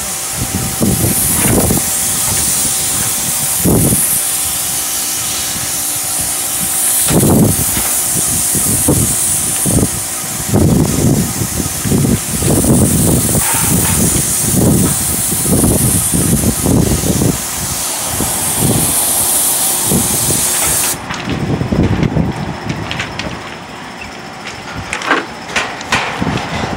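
Airless paint sprayer gun spraying paint onto siding: a steady high hiss that cuts off abruptly about 21 seconds in as the trigger is released. Irregular low rumbles run underneath throughout.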